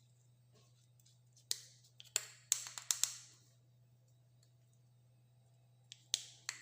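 Short clicks and light knocks from food-preparation items being handled on a work surface. A cluster comes about one and a half to three seconds in, and a few more near the end, over a faint low steady hum.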